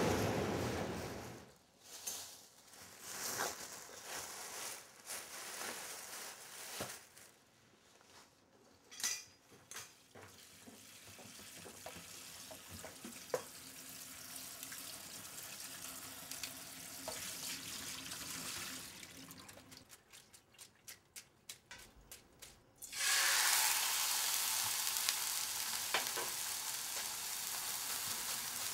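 Home kitchen sounds: scattered clatter and a steady run of water at the sink, then a quick run of sharp clicks, then food frying in a pan with a steady sizzle that starts suddenly about three-quarters of the way through.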